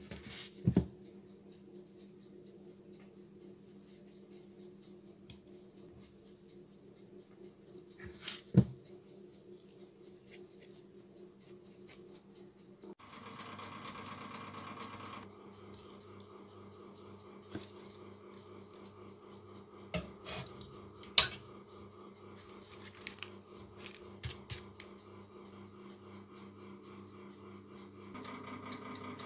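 Dishes and a baking tray being handled: a few sharp knocks and clicks over a steady low hum. For about two seconds mid-way, and again near the end, a louder steady whir from the running oven.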